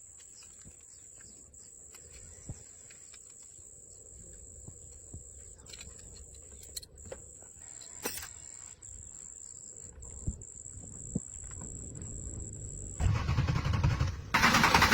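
A low background with a steady thin high whine and a few light clicks. About thirteen seconds in, the old Jeep engine cranks and starts loudly, breaks off for a moment, then turns over again.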